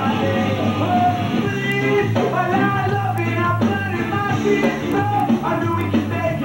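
Rock music with a singing voice over a steady bass line.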